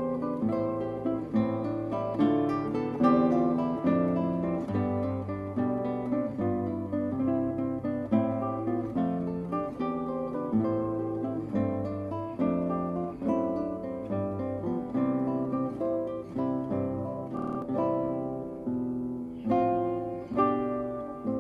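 Instrumental background music: a plucked acoustic guitar playing a continuous run of notes and chords, each note ringing out and fading.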